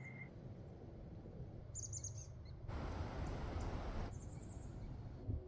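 A small bird chirps in short, high trills, about two seconds in, over a low outdoor wind rumble. In the middle comes a hiss of about a second and a half that starts and stops abruptly.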